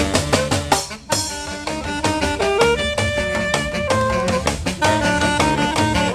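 Live band playing a tune with saxophones over drums. The music drops out for a moment just before one second in and comes back in on a sharp hit.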